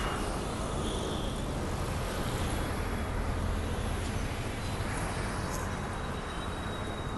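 Steady background traffic rumble, with a faint thin high whine coming in about halfway through.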